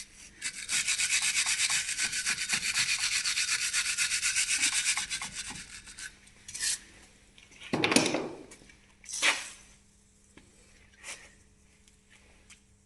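Hand tool working on a Range Rover's front hub: a fast, even rasping of about ten strokes a second for some six seconds, then two loud knocks about eight and nine seconds in.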